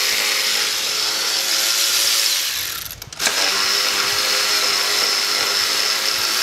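A power tool running at a steady pitch with a high whine. It stops briefly about three seconds in, then starts up again.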